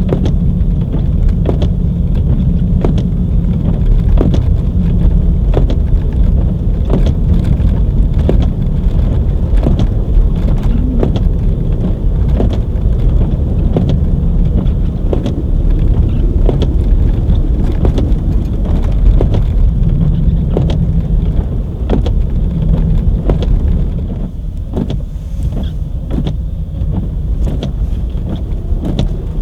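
Car driving on a snowy road: a steady low engine and road rumble with frequent sharp ticks, easing off somewhat near the end.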